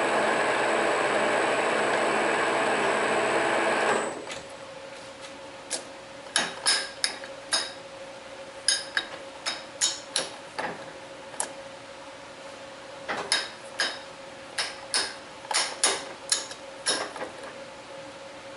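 Metal lathe running steadily, then shut off about four seconds in. After that come sharp metallic clinks and taps at irregular intervals, some in quick clusters, over a faint steady hum.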